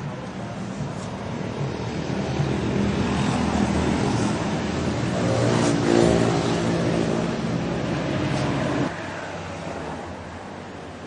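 Street traffic with a motor vehicle passing close by, growing louder to a peak about six seconds in, the engine pitch shifting as it goes past. The sound drops abruptly near the end.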